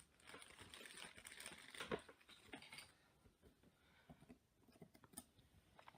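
Faint small clicks and crackling from hands and tools working on an opened iPad 2, mostly in the first three seconds, then a few scattered ticks.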